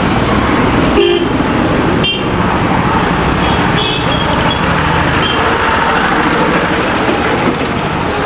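Busy street traffic with motorbikes running past close by, and a few brief horn toots, the first about a second in.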